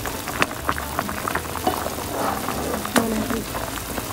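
A pot of meat on the bone boiling in a shallow broth: steady bubbling with many small pops and crackles, two louder pops about half a second in and near the end.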